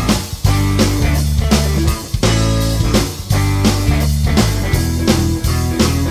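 Background music: a rock track with electric guitar, bass and drums playing a steady beat.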